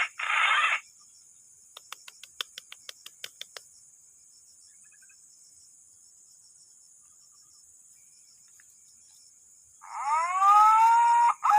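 Steady high drone of insects, with a quick run of about ten clicks early on. Near the end comes a loud animal call that rises in pitch and then holds, with several overtones.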